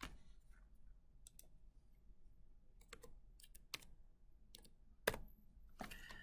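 Faint, scattered computer keyboard keystrokes and clicks as a short number is typed in, with one sharper click about five seconds in.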